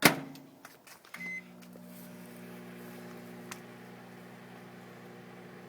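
Microwave oven being started: a loud clack of the door shutting, a few light clicks, and a short beep about a second in. Then the oven runs with a steady low hum.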